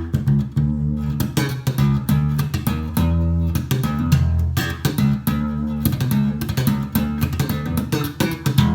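Ibanez SR1405 five-string electric bass played through its Nordstrand neck pickup: a continuous run of plucked notes with sharp attacks and full low end.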